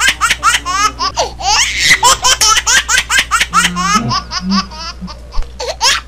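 Dubbed-in laughter sound effect: rapid high-pitched giggling, several pulses a second, loud and looping.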